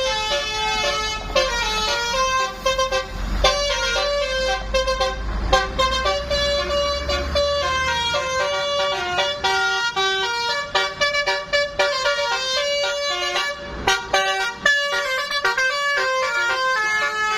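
Basuri musical bus horn playing a tune, one held note after another stepping up and down in pitch without a break.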